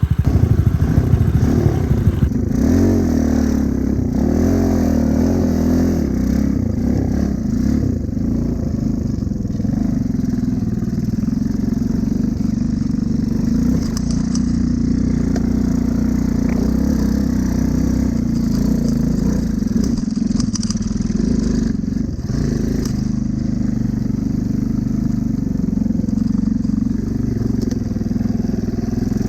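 Small Honda Cub motorcycle engine running while riding. Its pitch rises and falls in the first few seconds, then it settles into a steady drone.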